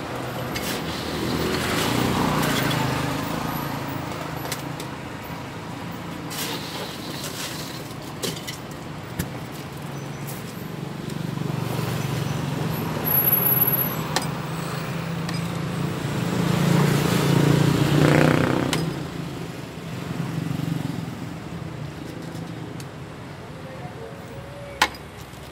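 Road traffic: motor vehicles passing close by one after another, their engines swelling and fading, the loudest about three-quarters of the way through, with a few sharp clicks.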